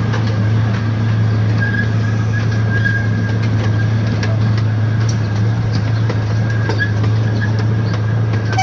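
Small zoo ride train running along at a steady speed, with a constant low drone from its motor and light clicks and rattles from the cars.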